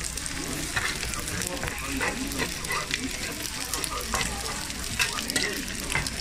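Soondae bokkeum sizzling on a flat metal griddle tray while metal spatulas toss and stir it, with irregular scrapes and clinks of the spatulas against the tray over a steady sizzle.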